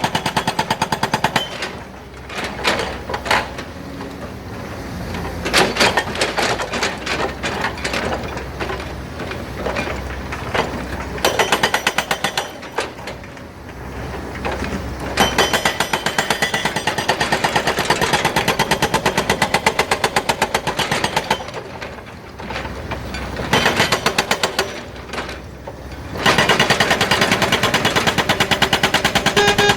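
Hydraulic rock breaker hammer on an excavator pounding rock, a rapid hammering in long bursts broken by several short pauses.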